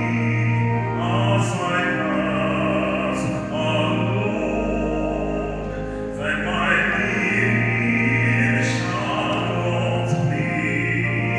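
Slow, classical-style singing with long held notes over a sustained low accompaniment, the sung consonants standing out every second or two.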